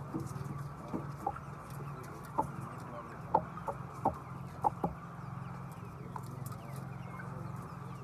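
A large flock of chickens clucking, with a run of short, louder squawks between about one and five seconds in, over a low steady hum.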